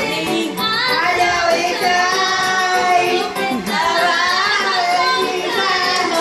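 Women singing a song into a handheld microphone over backing music, holding some long notes.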